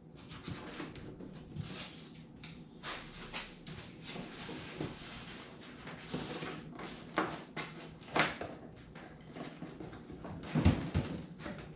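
Scattered clicks, knocks and rattles of large clamps being handled and set on the boat's foam sides, with a sharp click about eight seconds in and a louder thump near the end.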